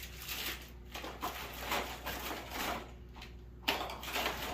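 Someone rummaging through things: irregular rustling and light clattering, with a short lull about three seconds in and a sudden rustle after it.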